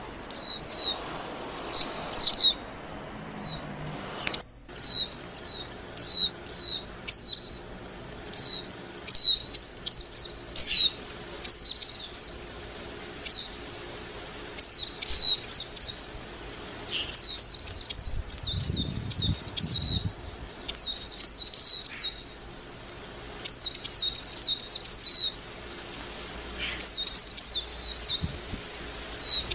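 White-eye (vành khuyên) singing a twittering song: quick runs of high, downward-sweeping chirps in bursts, with short pauses between runs.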